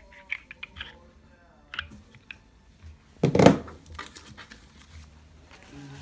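Handling noise from steel lathe-chuck top jaws: a few sharp clicks of the jaws knocking together in the hand, then one louder clatter about halfway through, followed by lighter paper handling near the end.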